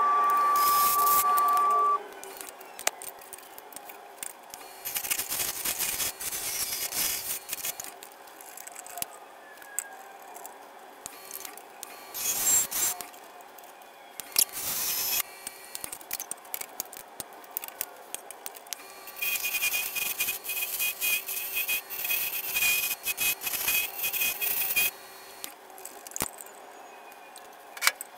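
Wood lathe spinning a segmented wooden bowl while a turning tool cuts it in intermittent scraping passes of a few seconds each, over a faint steady hum. A louder steady whine cuts off abruptly about two seconds in.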